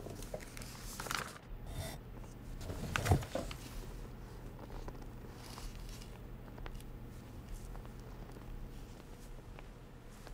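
Sheets of paper rustling and a single thump about three seconds in as a student gets up from her desk, then faint scattered taps of footsteps.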